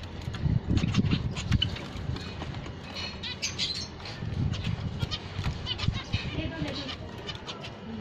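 A colony of zebra finches calling: many short chirps and calls overlapping throughout, with a low rumbling noise underneath.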